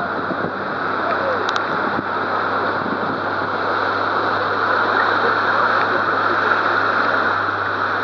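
Rushing river water from rapids around a raft, a steady rush that grows slowly louder.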